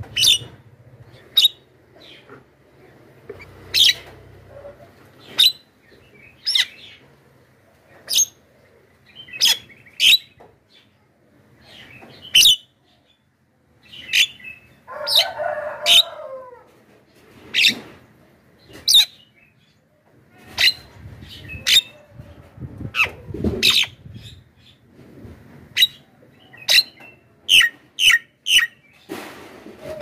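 Javan myna calling: a long string of short, sharp, high-pitched calls, about one or two a second, with a lower, harsher call about fifteen seconds in and quicker calls near the end.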